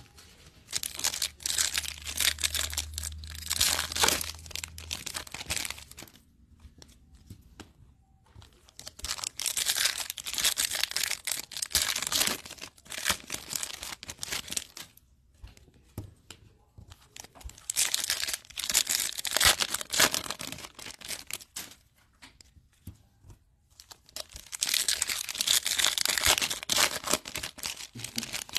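Foil Topps Chrome card-pack wrappers being torn open and crinkled by hand, in four bouts a few seconds apart.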